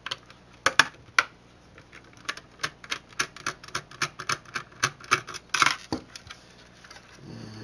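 Screwdriver backing a screw out of a plastic electronics casing: a run of regular clicks, about three or four a second, with a few louder knocks and a short louder rattle toward the end.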